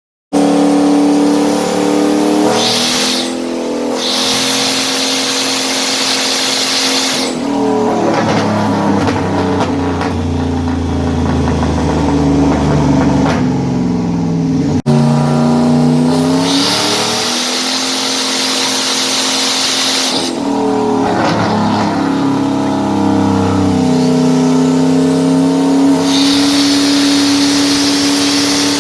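Turbocharged 6.4-litre Hemi V8 in a Jeep SRT8 running hard on a dyno, its revs rising and falling through several pulls. Three times, a loud rushing hiss rides over the engine, from the external wastegate's open screamer pipe venting boost.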